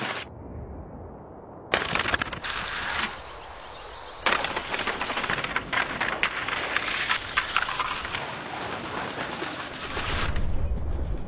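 Skis scraping and chattering over stone paving and steps, in loud rough stretches with many sharp clicks, broken by two short quieter gaps early on. Near the end a low rumble takes over.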